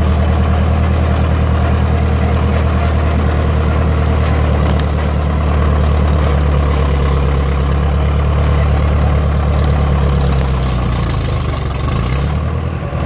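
International Harvester TD9 crawler dozer's diesel engine running steadily as the machine crawls forward pushing brush and dirt with its blade. Near the end the engine note sags and wavers briefly.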